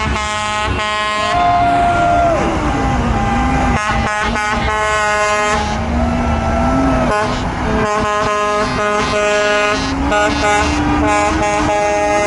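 Vehicle horns, including a truck air horn, honking in repeated blasts over passing traffic. About a second in, one long held tone slides down in pitch and then slowly climbs again toward the end.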